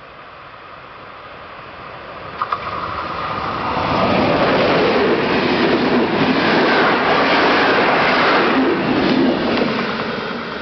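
Intercity passenger train hauled by an EP07 electric locomotive approaching and passing at speed: a swelling rush of wheels and coaches, loudest through the middle, with a rapid clatter over the rail joints, then falling away near the end. Two short sharp clicks come about two and a half seconds in as it draws near.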